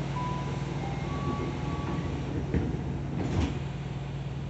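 Tokyu 3000 series train car standing at a station with a steady low hum from its onboard equipment. A few short beeps sound in the first two seconds, then the sliding doors shut with two knocks about two and a half and three and a half seconds in.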